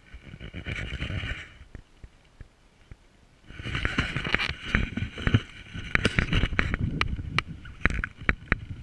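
Handling noise at an ice-fishing hole: rustling and crunching of slush and ice, with many sharp clicks and knocks. A short burst comes in the first second and a half, then a longer, busier stretch starts about three and a half seconds in.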